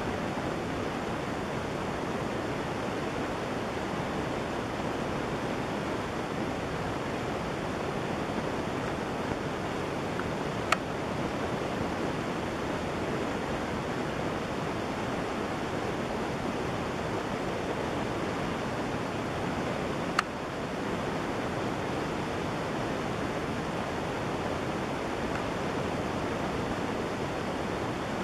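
A steady, even rushing noise with no bird calls in it, broken by two short, sharp clicks about eleven and twenty seconds in.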